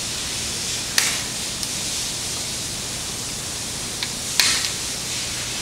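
Two sharp snips, about a second in and again near the end, as the excess tails of two nylon cable ties are cut off with a pair of cutters, over a steady hiss.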